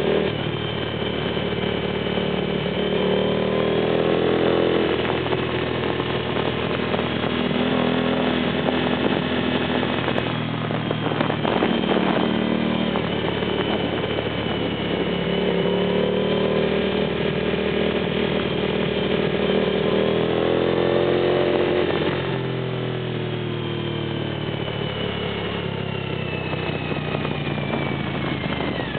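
Suzuki TL1000S's 996 cc V-twin engine running hard through a series of curves. Its pitch climbs under throttle and drops back when the throttle closes, most clearly about 22 seconds in. Wind rush sounds throughout.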